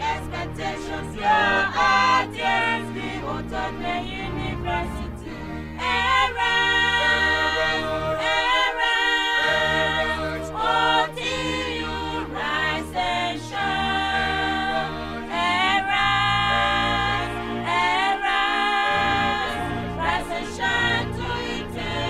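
Music: a choir singing over a bass accompaniment.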